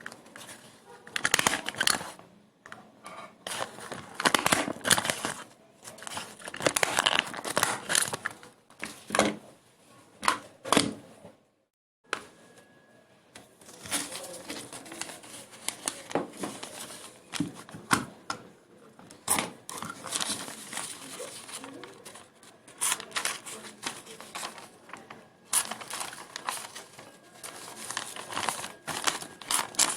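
Crinkling and rustling, as of plastic or paper being crumpled and handled up close, in irregular crackly bursts, with a brief break about twelve seconds in.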